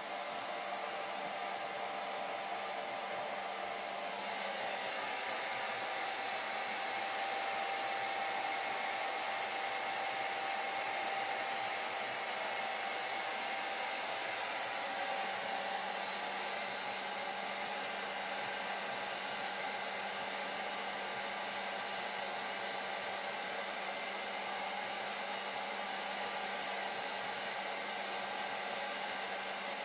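Hair dryer running steadily: a continuous rush of air with a faint motor whine and hum.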